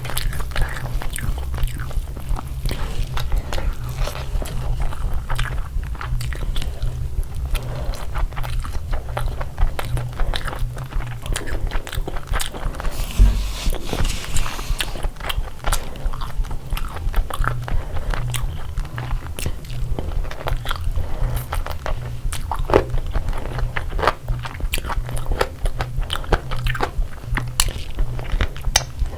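Close-up eating sounds: steady chewing and biting, with many short crisp crunches, as of papad being eaten along with rice and curry.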